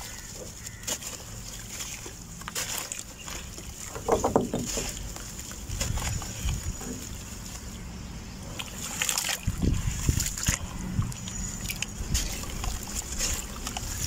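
Soft, dusty red dirt crumbling from a block in wet hands and pouring into a basin of water, with sloshing and splashing as the hands squeeze and work the mud. Louder splashes come about four seconds in and again near ten seconds.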